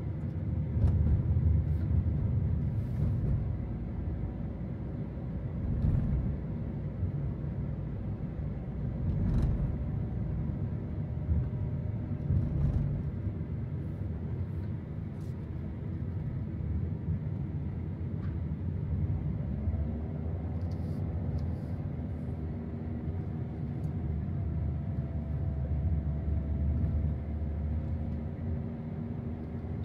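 A car driving on the road: a steady low rumble of engine and tyre noise, with a few light knocks. About two-thirds of the way in, a faint engine tone rises.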